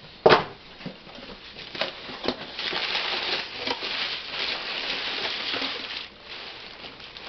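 Cardboard shipping box being opened: a sharp tearing crack just after the start as the taped flaps are pulled apart, a few small knocks, then several seconds of crumpled packing paper rustling and crinkling.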